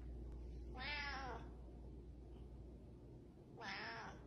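A cat meowing twice, faintly: two short meows, one about a second in and one near the end, each rising then falling in pitch.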